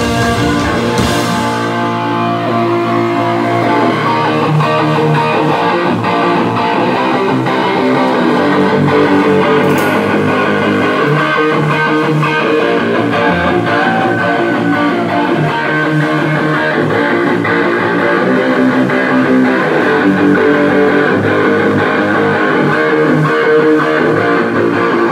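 Live rock band playing loudly, with electric guitar and bass guitar prominent.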